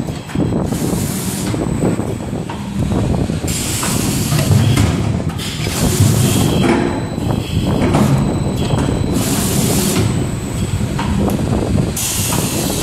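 Motorcycle brake-cable wire melting, cutting and end-forming machine running: a steady mechanical rumble broken every few seconds by bursts of hissing.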